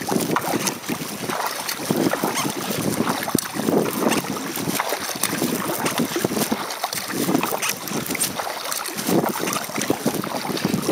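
Kayak paddle strokes: the blades dipping and splashing in the water in a steady rhythm, a stroke every couple of seconds, with scattered drips and light knocks. Wind buffets the microphone throughout.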